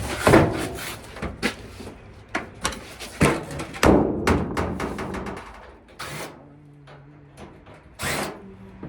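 Sheet-metal dryer panels and parts being handled during disassembly: a run of knocks, clunks and rattles, with a short low steady drone about two-thirds of the way through.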